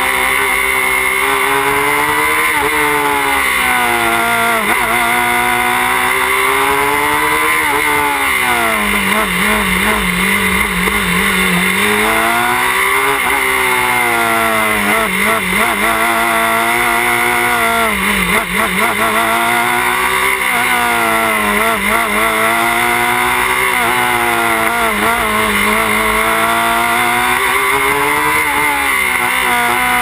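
Open-wheel single-seat race car's engine heard on board while lapping, its note climbing under throttle and sinking into each corner again and again, lowest for a few seconds about nine seconds in. The car is running with its shroud fitted, in a noise test that measured it at 103 dB.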